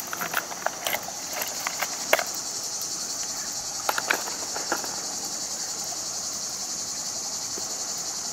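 Steady, high insect chorus shrilling in the grass, with a scatter of light clicks and clacks of hard fishing lures and their hooks knocking together as they are handled in a plastic tackle box during the first half, the sharpest click about two seconds in.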